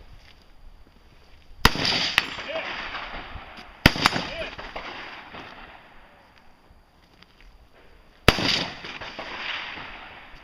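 Three single rifle shots, a little over two seconds apart and then about four and a half seconds apart. Each crack is followed by a long echo that dies away over a second or two.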